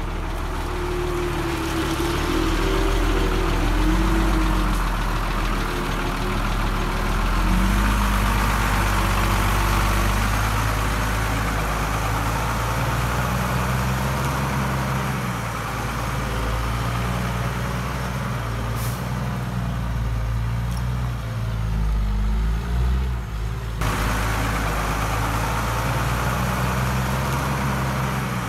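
Heavy diesel engine of earthmoving machinery running, its pitch stepping up and down as the load changes, over a steady mechanical hiss. The noise changes abruptly near the end.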